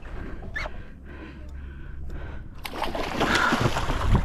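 Water splashing beside a kayak as a hooked yellowfin tuna is brought to the surface, with a few sharp clicks in the first half. The splashing grows louder about two and a half seconds in.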